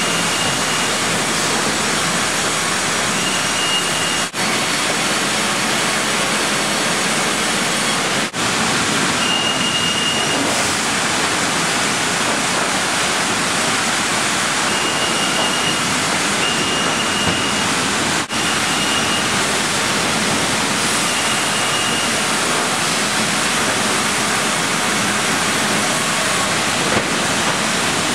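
Loud, steady din of a sawmill production line with its saws cutting logs. Short high-pitched tones come and go every few seconds, and the noise briefly drops out three times.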